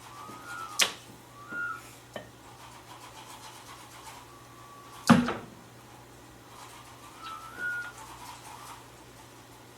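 Hand-made foley sound effects: several short squeaky, whistle-like notes, with a sharp knock just under a second in and a louder bang about five seconds in.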